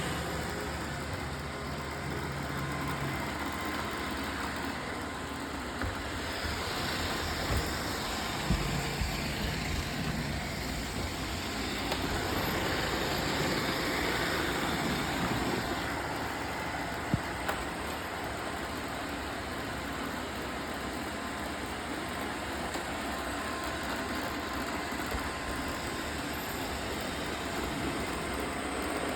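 Robot vacuum cleaners running with a steady whirr, with a few short knocks.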